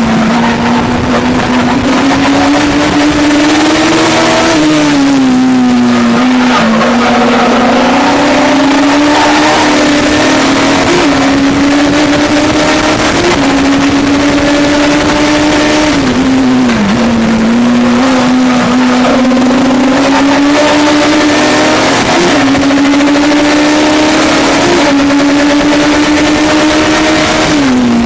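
Legends race car's Yamaha motorcycle inline-four engine running hard, heard from inside the cockpit with wind and road noise. Its pitch climbs slowly under acceleration and drops sharply three times as the driver lifts off or shifts, with a few brief blips in between.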